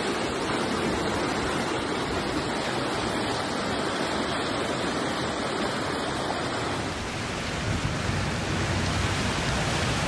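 Floodwater rushing down a street in a steady, continuous roar of water, growing deeper about three-quarters of the way through.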